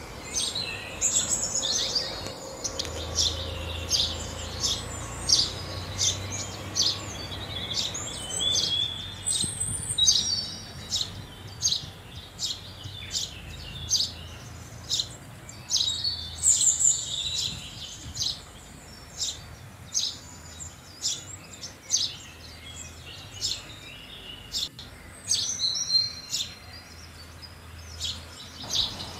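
House sparrows chirping: a steady series of short, high chirps, one or two a second, broken by several quicker bursts of chatter.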